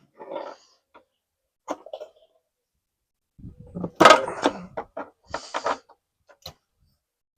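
Scattered clicks, knocks and rattles of hands working loose the wiring on a small engine, with a busier run of handling noise in the second half, loudest a little after four seconds.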